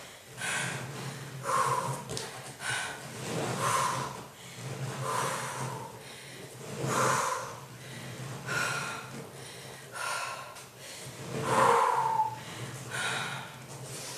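A woman breathing hard under exertion, with a forceful exhale about every one and a half seconds, about ten in all.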